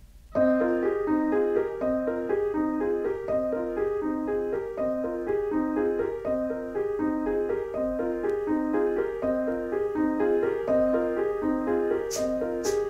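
Minimalist piano music: a fast, evenly repeating figure of notes that starts about half a second in and keeps cycling. Near the end a few short, high hissing strokes join in.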